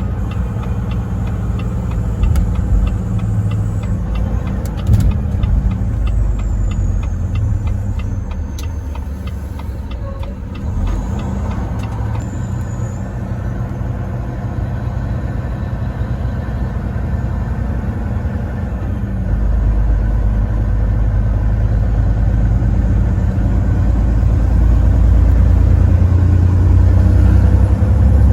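Truck engine and road noise heard while driving on the highway: a steady low rumble that grows louder about two-thirds of the way through, with light, even ticking in the first several seconds.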